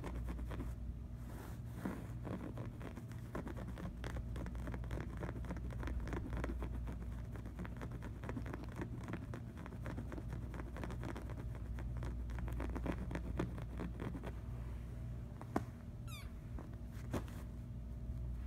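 Light scratching and rustling on a fabric couch cushion, many small scratchy ticks over a steady low hum. Near the end come a couple of sharper clicks and one brief high squeak falling in pitch.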